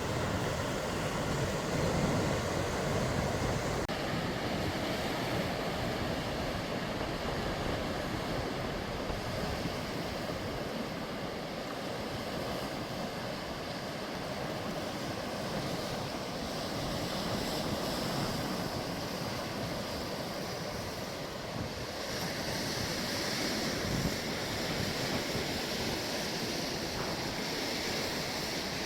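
Sea waves washing steadily against the shore, with wind buffeting the microphone. The wash turns hissier about three-quarters of the way through.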